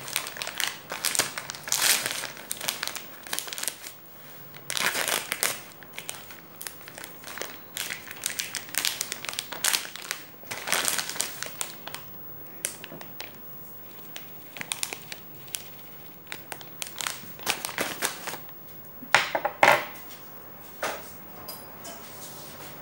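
Plastic food package crinkling and rustling as it is handled and emptied over a bowl, in irregular bursts. Near the end comes a louder clatter.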